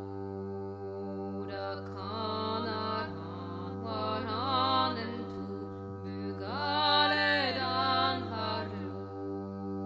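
Background music: a chant-like melody in three wavering phrases over a steady low drone.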